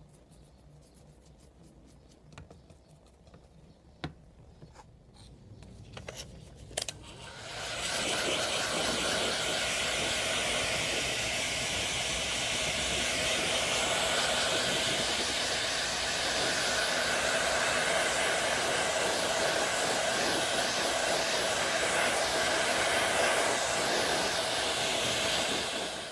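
An electric blower of the hair-dryer type switches on about seven seconds in and runs with a steady, even rushing noise, stopping abruptly at the very end. Before it come a few faint taps and clicks.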